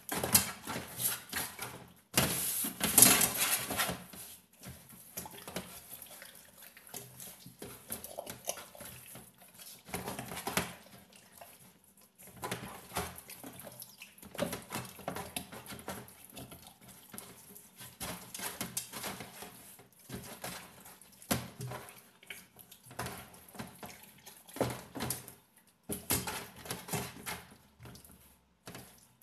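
Wet squelching and slapping of hands rubbing and massaging an oil-coated raw whole chicken in a pan, in irregular bursts, loudest about two seconds in.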